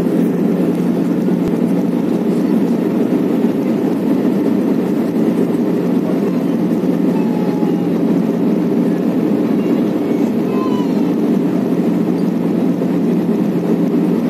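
Airbus A319 cabin noise in flight, heard from a window seat beside the engine: an even, unbroken rush of engine and airflow with a steady low hum.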